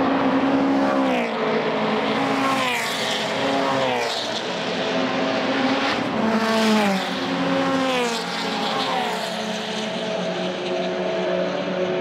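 Several Toyota GT86 race cars pass one after another at racing speed, exhaust loud, each car's engine note falling in pitch as it goes by.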